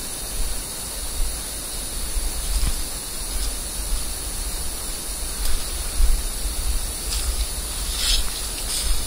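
Steady hiss from a small action camera's microphone with a low rumble on the mic, and a few brief rustles and snaps of someone walking through forest brush.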